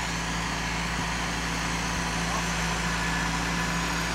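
Farm tractor's diesel engine running steadily as it pulls a seed drill across a field.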